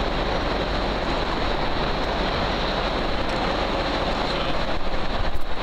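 Steady, loud din of ore-processing machinery running, a rock crusher and conveyor belts, with a constant low rumble.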